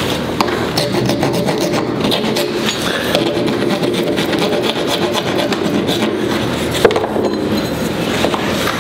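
Wooden axe handle clamped in a vise being shaved with a 4-in-1 rasp: steady scratchy rasping of wood. It is being fitted to the axe head's eye, and near the end the steel head is pushed onto the handle. There is one sharp knock about seven seconds in.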